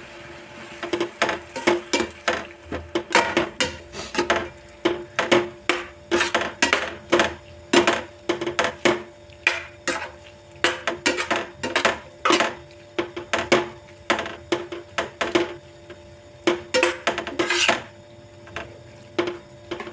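A spoon stirring vegetables and sauce quickly in a stainless-steel pan, knocking and scraping against the pan about twice a second, with a few short pauses. A steady faint hum runs underneath.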